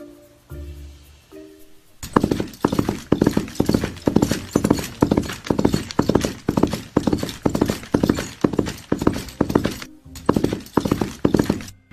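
Soft music notes, then about two seconds in a quick, even clip-clop of horse hooves, which breaks off briefly near the end and resumes.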